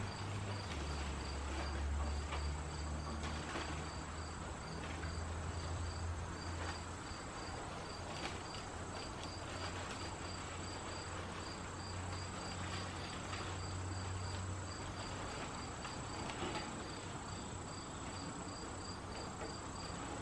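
Insects chirping in a steady, even rhythm, about three short high chirps a second, over a faint steady high whine and a low rumble.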